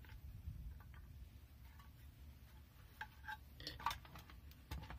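Faint clicks and light taps from a metal tool box and its contents being handled, a few clustered past the middle and another near the end, over a low steady room hum.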